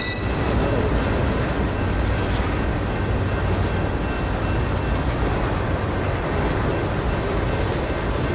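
Empty covered hopper cars of a grain train rolling past: a steady rumble of steel wheels on rail. A brief high-pitched squeal comes right at the start and is the loudest sound.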